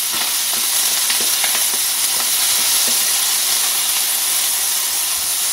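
Peas and chopped prawns sizzling steadily in hot olive oil in a frying pan as they are sautéed, stirred with a wooden spatula that adds a few faint knocks.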